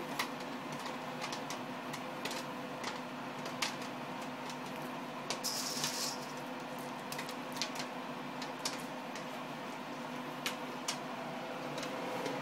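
Popcorn kernels popping in a commercial popcorn machine's kettle: sharp single pops at irregular intervals over the machine's steady hum. A brief hiss comes about five seconds in.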